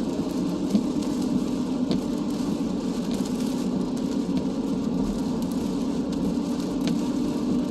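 Steady road and engine noise inside a moving car, a low even rumble, with scattered light taps of rain hitting the car.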